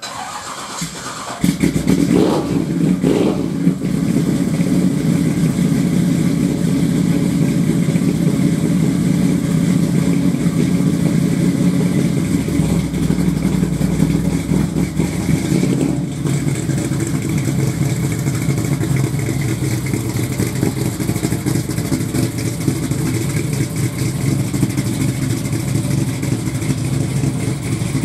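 The truck's 427 big-block Chevy V8 is cranked and catches about a second and a half in, after sitting for just over a month. It is revved briefly, then settles into a steady idle.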